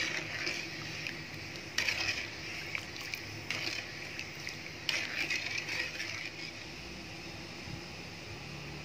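Metal ladle stirring boiling sugar syrup in a wok to dissolve the sugar, scraping and knocking against the pan three times, over the steady hiss of the simmering water.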